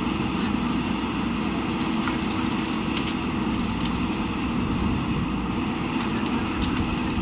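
Diesel engine of a JCB backhoe loader running steadily, with a few faint light clicks over it.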